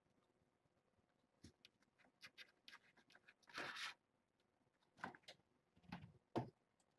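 Kittens playing: light scratching and tapping of claws and paws on a towel, a short scrabbling rustle about halfway through, and a few soft thumps near the end.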